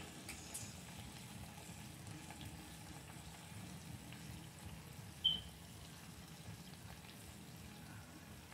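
Steaks frying in a stovetop grill pan with soy sauce, sizzling faintly and steadily. A brief high-pitched chirp about five seconds in.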